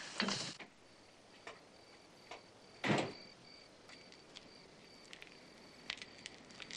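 Crickets chirping steadily, a few short high chirps a second, with scattered soft clicks and one brief louder noise about three seconds in.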